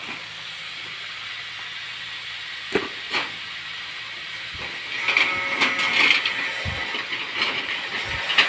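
Corrugated metal roofing sheets being handled and slid over one another, scraping and rattling. Two sharp knocks come close together about three seconds in.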